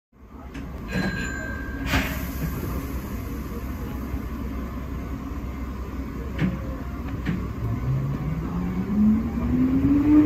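Inside the cab of a Hankyu 3300 series electric train: a steady low rumble, with a short beep and a couple of clunks about a second in and a few more clicks later. About eight seconds in, the train starts pulling away and the traction motors' whine rises steadily in pitch.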